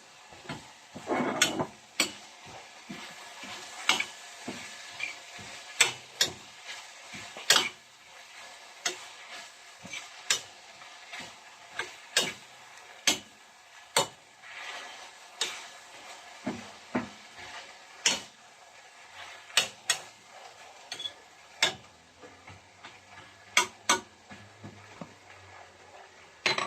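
A utensil stirring and mixing chopped vegetables in a pan, with irregular scrapes and knocks against the pan about once a second over a faint, steady sizzle.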